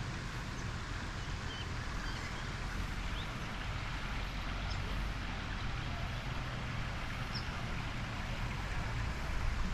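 Outdoor garden ambience: a steady low rumble of wind on the microphone under an even hiss, with a few faint short bird chirps.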